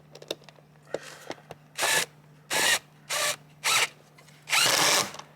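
Cordless drill-driver running in five short bursts, the last one longest, driving screws to fasten a heat pump line set cover, with small clicks and knocks between the bursts.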